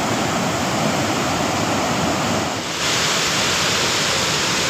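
Sutlej River floodwater rushing and churning through barrage gates, a loud, steady rush of water that turns brighter about three seconds in.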